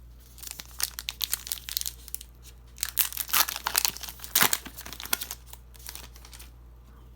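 Wrapper of a hockey card pack crinkling and tearing as it is opened by hand: a run of irregular sharp crackles, loudest in the middle, that stops shortly before the end.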